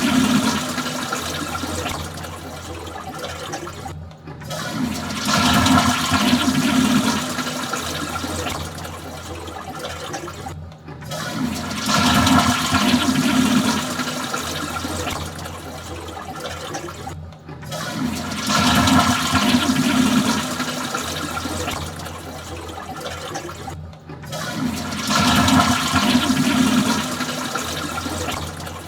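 Toilet flushing, the same flush repeated over and over: each time a loud rush of water that tapers off, then a brief break and the next flush, about every six and a half seconds.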